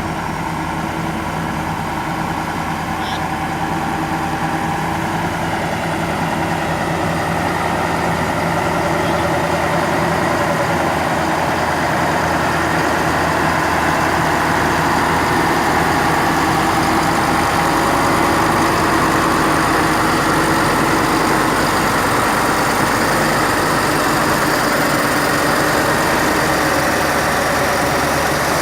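Heavy truck diesel engine running steadily, slowly growing louder.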